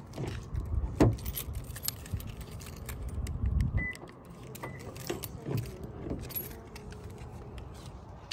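A bunch of car keys jangling and clicking while held in the hand, with a sharp clink about a second in. Two short high beeps sound around four seconds in.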